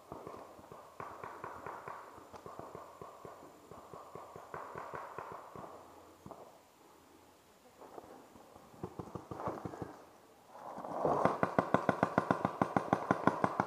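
Rapid paintball fire: strings of sharp pops at several a second. A fainter string comes in the first half, and a louder, faster stream starts at about ten and a half seconds and runs on.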